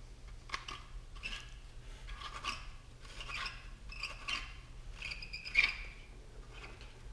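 Steel barrel insert of an old Daisy Red Ryder BB gun being screwed by hand into its greased barrel tube: a run of short, irregular scraping twists of metal threads, one louder stroke about two-thirds of the way through.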